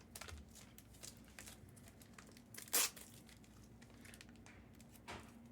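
Faint rustling and crinkling of trading cards and their plastic packaging being handled, with a sharp snap about three seconds in and a smaller one near the end.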